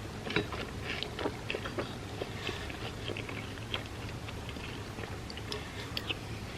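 Close-miked chewing of chocolate hazelnut wafer cereal in milk: irregular short crunches and wet mouth clicks, over a steady low hum.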